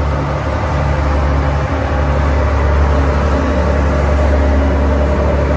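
Tour boat's engine running steadily with a low drone, mixed with a hiss of water and wind.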